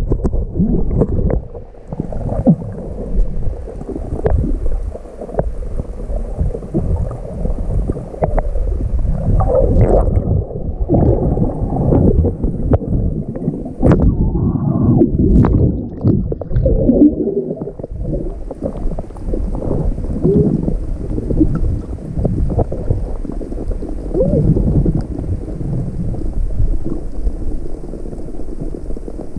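Muffled rumbling and gurgling of water around a camera held underwater while snorkelling, with scattered small clicks and knocks.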